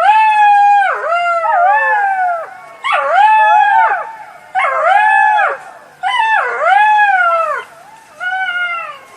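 Jackal howling: a run of about six wavering, high-pitched calls, each rising, holding and then falling off sharply, with short gaps between them; the last call is fainter.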